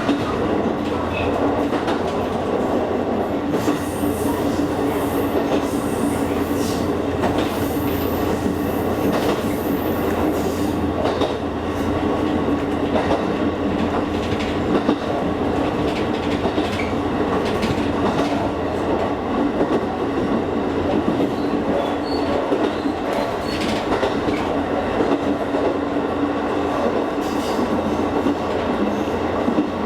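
Kakogawa Line train under way: a steady running rumble of wheels on rail with a constant hum and scattered light clicks over the rail joints.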